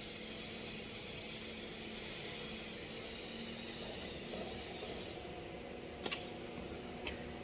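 TIG welding arc on stainless steel, a steady hiss that brightens a couple of times and cuts off sharply about five seconds in, followed by two light clicks.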